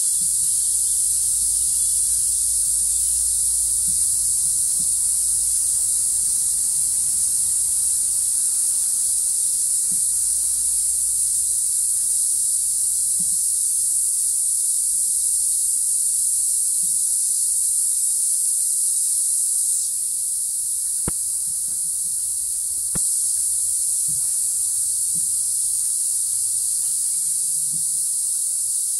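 Dense chorus of tropical rainforest insects, a steady high-pitched shrilling that eases slightly for a few seconds past the middle.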